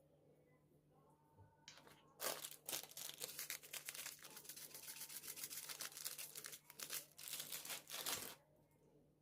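Crinkling and rustling of thin material being handled, with tearing-like crackles, starting about two seconds in and stopping about a second before the end.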